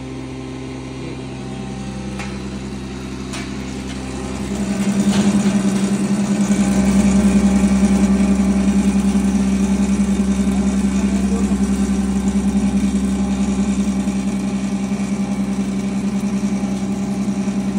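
Milk powder grinder machine running with a steady hum, fed with powder poured into its hopper. The hum grows louder about four and a half seconds in and then holds steady.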